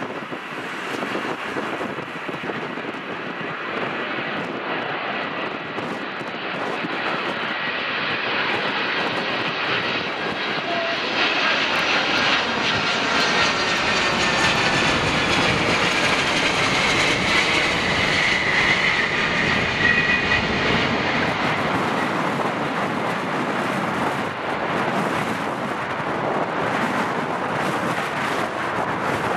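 Boeing 747 freighter's four jet engines on final approach, passing low overhead: a dense rumble that grows louder, with a high engine whine strongest in the middle, then easing slightly as the jet moves away.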